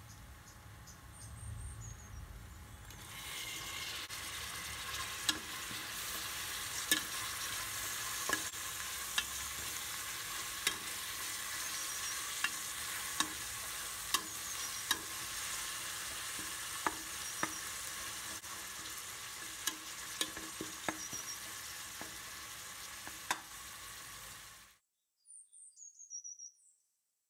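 Chopped tomatoes and green chilies sizzling in hot oil with fried onions in an aluminium pressure cooker. The sizzle grows louder about three seconds in, with many sharp clinks of a steel spoon stirring against the pot. It cuts off suddenly near the end.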